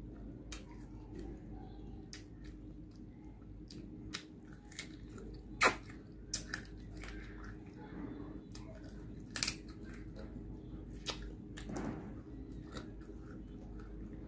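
Close-up eating sounds of a person chewing and biting food: soft chewing with scattered sharp crunches and clicks, the loudest about six seconds in and again near nine and a half seconds.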